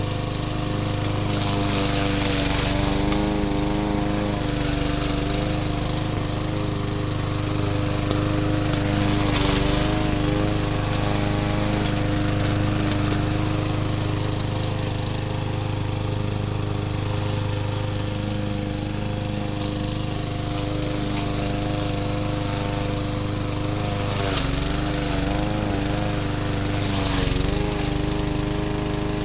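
Small gasoline engine of a walk-behind push lawn mower running steadily while cutting tall grass and weeds. Its engine speed dips briefly twice near the end as it pushes into the thick growth.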